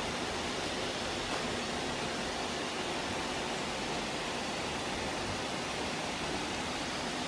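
Many robot vacuums running at once, a steady whirring hum of their motors and brushes.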